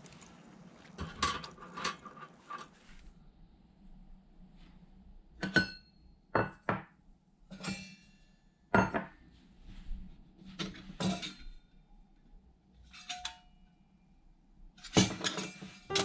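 Scattered metallic clinks and knocks, some ringing briefly, from small stainless steel fold-up fire stands being handled. Light piano-like background music comes in near the end.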